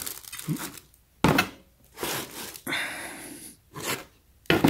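Frying pans and their cardboard packaging being handled and set down: a few dull knocks and rustles, with a longer scraping slide around the middle.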